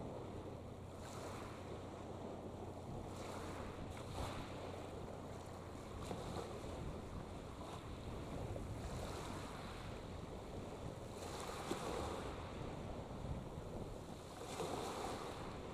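Wind on the microphone and small waves washing at the waterside, swelling every few seconds, over a steady low hum.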